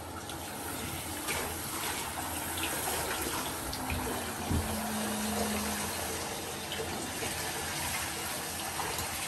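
Handheld shower head spraying water steadily onto a wet dog's coat and into a bathtub.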